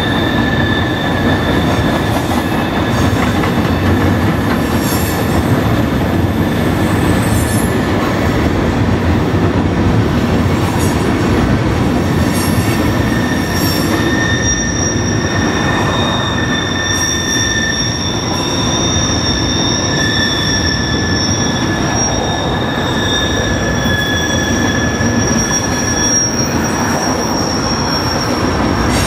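Freight train tank cars rolling over a steel girder bridge: a steady loud rumble with a high, steady squeal from the wheels, which shifts to a higher pitch about halfway through.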